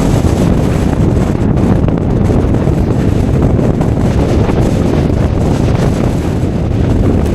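Strong wind blasting across the microphone: a loud, steady, low rumbling rush with no let-up.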